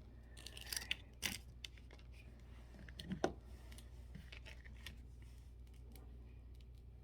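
Faint rustling and a few sharp clicks of small screws and rack parts being handled and sorted, with the loudest click about three seconds in, over a low steady hum.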